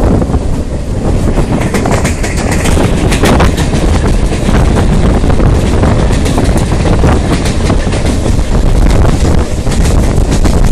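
A train rolls steadily across a bridge with a continuous loud rumble, mixed with wind buffeting the microphone held out of the moving carriage.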